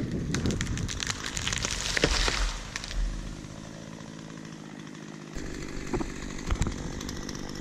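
Chainsaw running at a distance while a felled tree comes down, a rushing crash of branches with a sharp hit on the ground about two seconds in; the saw keeps running afterwards.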